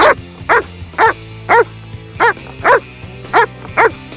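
Dog barking repeatedly at a rope tug toy held in front of it: eight short barks at about two a second, falling roughly into pairs. Steady background music runs underneath.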